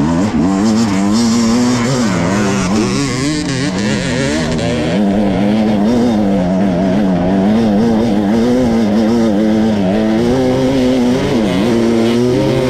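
Enduro dirt bike engine revving hard and continuously, its pitch rising and falling as the throttle is worked. It starts suddenly.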